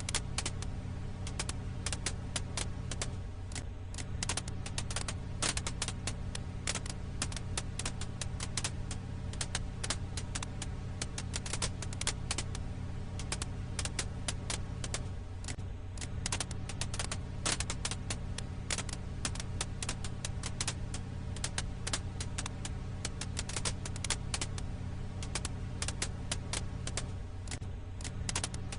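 Firewood crackling in a campfire: many sharp crackles and pops, several a second, over a steady low rumble.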